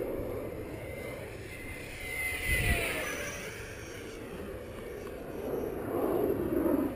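Electric ducted fan of a Parkzone Habu RC jet, fitted with a Change Sun 10-blade fan unit, whining in flight. The whine swells with a falling pitch about two and a half seconds in, and swells again near the end.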